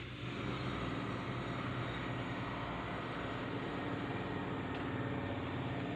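Steady, unbroken mechanical drone with a low hum, like a large engine running.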